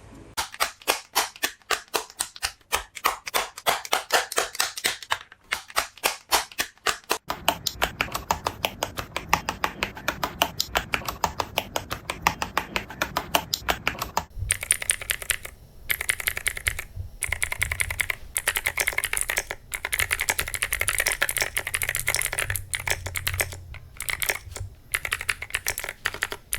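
Akko Creamy Cyan clicky mechanical switches (PC housings, POM stems) being typed on: a continuous run of sharp clicks. The typing grows denser after about seven seconds, and in the second half it comes in fast runs broken by short pauses.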